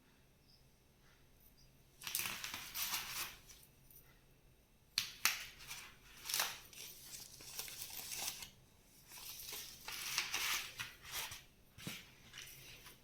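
Crinkling and crushing handling noise in three irregular spells, the first about two seconds in, then two longer ones.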